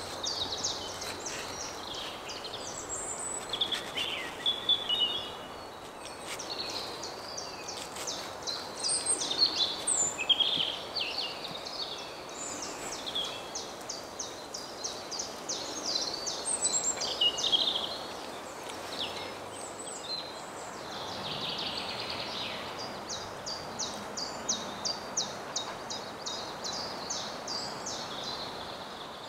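Woodland birdsong: a bird repeats a high chirp about three times a second in long bouts, while other birds sing brief phrases over a soft steady background of forest noise.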